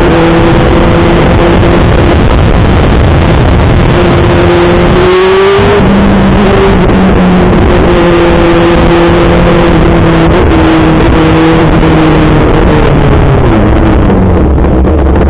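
Kawasaki ZX6R 636 inline-four sport bike engine running at steady speed, very loud. About five seconds in the pitch rises and breaks briefly, like a gear change, and near the end the pitch falls as the bike slows.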